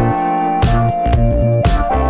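Instrumental background music: held melody notes stepping in pitch over a bass line, with a steady beat.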